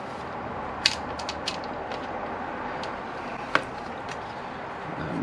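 A few light metallic clicks from hand-fitting a washer and nut onto a bolt behind a motorcycle footrest hanger plate, the sharpest about a second in and again near three and a half seconds in, over a steady background hiss.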